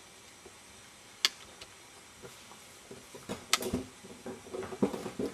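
A few light clicks and knocks over a quiet room: one sharp click about a second in, then a cluster of small knocks, the loudest about three and a half seconds in.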